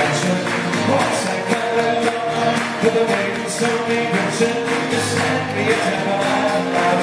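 Live folk music: an acoustic guitar and an Irish bouzouki strummed together in a steady, lively rhythm.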